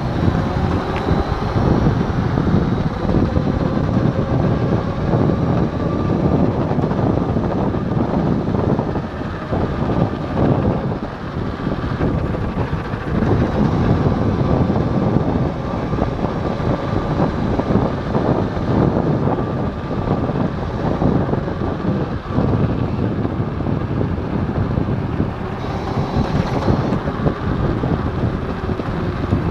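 Wind buffeting the microphone and road rumble from a Kaabo Wolf Warrior X Pro electric scooter riding at speed, with a faint steady whine from its hub motors.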